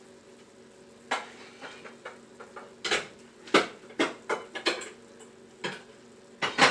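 Dishes and containers being handled off to the side: a run of irregular clinks, clacks and knocks of kitchenware starting about a second in, the loudest near the middle and near the end.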